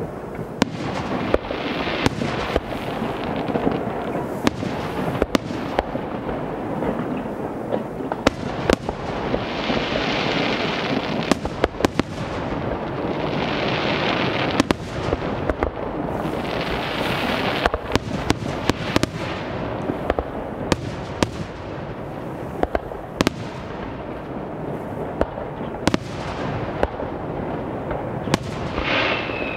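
Aerial firework shells bursting in quick succession: many sharp bangs over a continuous rumble and crackle, with spells of hissing about 10, 14 and 17 seconds in and a whistle near the end.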